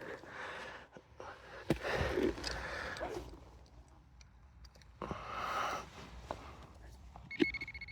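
Soil being scraped and rummaged by hand in a dig hole in two spells, with clicks and breathing. Near the end an electronic beeping starts, a repeating high tone like a metal-detecting pinpointer sounding on a target.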